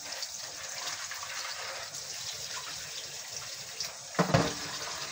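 Kitchen tap running into a sink while hands wash food in a plastic basin, with water splashing steadily. There is one louder thud about four seconds in.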